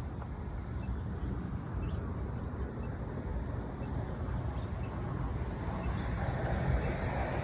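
City street ambience: a steady low rumble of traffic, growing a little louder near the end as a vehicle comes closer.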